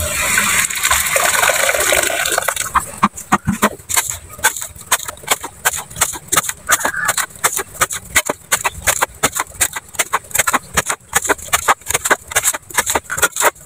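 Wet cement mortar sliding and pouring out of a plastic bucket into a plastic basin. About three seconds in it gives way to a trowel scooping mortar and flicking it onto a block wall, making quick, irregular slaps a few times a second.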